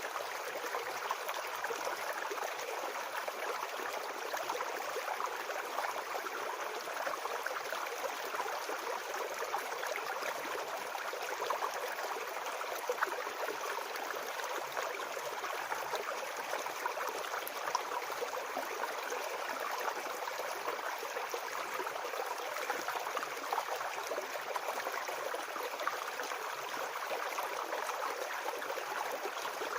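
Small forest brook babbling and gurgling over stones in a steady, even flow.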